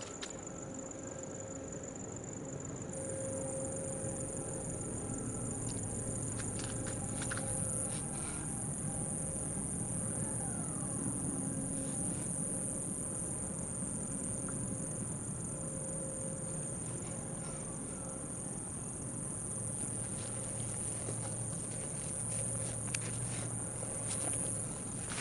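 Insects chirring in a steady high-pitched chorus, over a low steady rumble.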